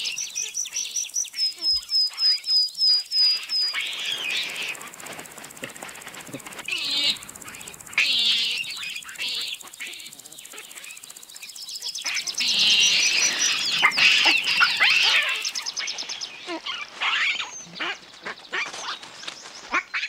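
High-pitched wildlife calls and chirping. About a second in comes a quick run of about ten short, evenly spaced notes, and bursts of dense chattering follow later.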